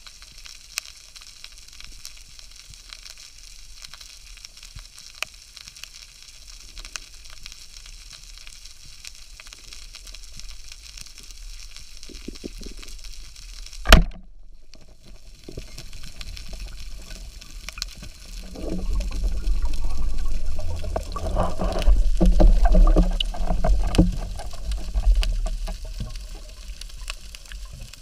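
Underwater crackling hiss heard through a camera housing, broken about halfway through by a single loud, sharp crack of a rubber-band speargun firing. A few seconds later comes a long, loud, low rumble of water and bubbles against the camera as the diver swims up.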